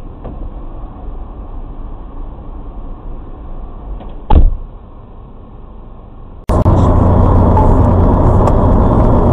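Steady vehicle engine and road noise, with a single sharp knock about four seconds in. A little over six seconds in it cuts abruptly to a much louder, steady engine and road noise with a low hum.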